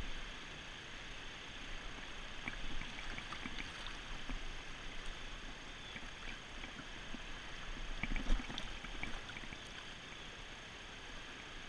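River water flowing steadily through a riffle, with a few light clicks and knocks about three seconds in and again around eight seconds.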